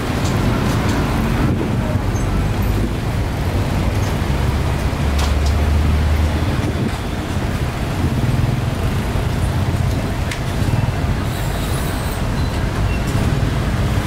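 Street traffic noise: passing engines make a steady low rumble that swells a little now and then, with a few faint clicks over it.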